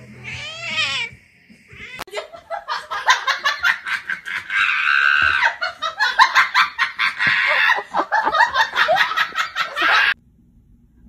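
A short cat meow, then a person laughing hard and on and on in quick pulses, stopping suddenly near the end.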